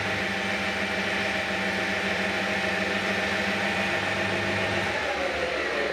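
Hafco Metal Master AL-340 metal lathe running with its chuck spinning, a steady hum with a whine above it. About five seconds in, the low hum stops and the whine starts to fall in pitch as the spindle slows.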